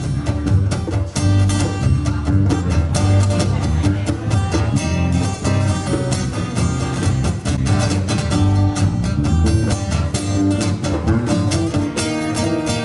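Live band playing a guitar-led instrumental passage with a steady beat.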